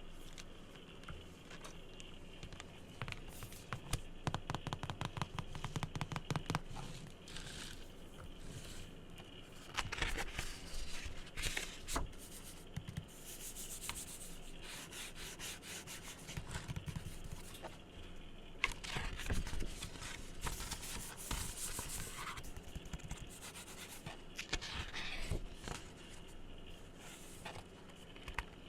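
Close-miked ASMR tapping and rubbing on objects: a quick run of light taps, several a second, then bouts of scratching and rubbing across a surface.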